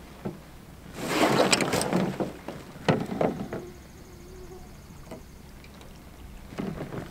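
Camping gear being handled and loaded into a canoe. A burst of rustling and scraping starts about a second in, then a few sharp knocks against the hull around three seconds, and more rustling near the end.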